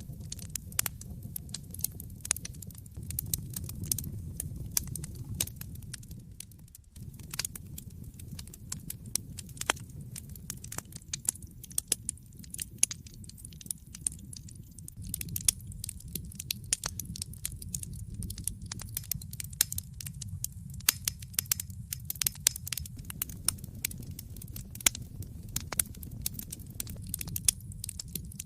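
Wood fire burning in a fireplace: dense, irregular crackles and pops over a steady low rumble of the flames, with a brief lull about seven seconds in.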